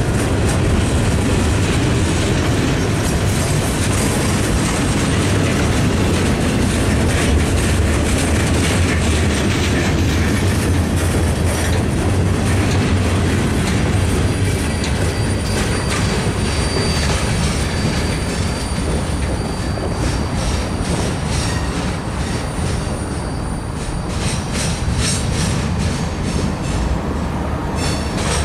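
Freight train cars rolling past at close range: a steady low rumble of wheels on rail with repeated clicks and clatter over rail joints, and a thin high wheel squeal through the middle.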